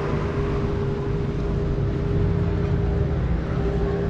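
A motorboat engine running at a constant drone, with a steady rushing noise beneath it.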